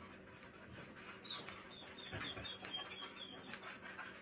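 Soft Coated Wheaten Terrier puppy giving a run of short, high squeaky whimpers from about a second in to past three seconds. Faint snips of small scissors trimming the hair inside its ear run throughout.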